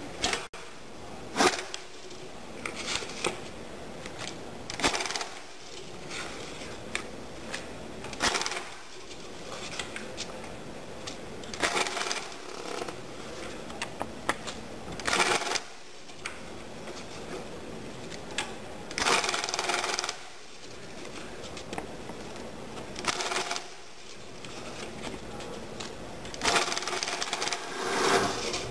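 Cummins JetScan 4068 currency counter feeding and counting a stack of banknotes in short whirring runs of a second or two, about nine times, stopping between runs. It is counting in stranger mode, which halts the count whenever a note of a different denomination turns up and must be removed.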